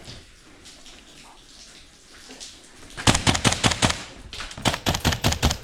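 Airsoft gunfire in close quarters: after a few quiet seconds of faint movement, a rapid burst of sharp shots comes about three seconds in, followed by a second, more spaced string of shots near the end.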